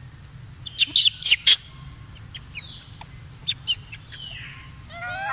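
Macaque monkeys giving sharp, high-pitched squeaks in two quick clusters, about a second in and again past three seconds, with a few falling squeals between them and a short pitched call near the end.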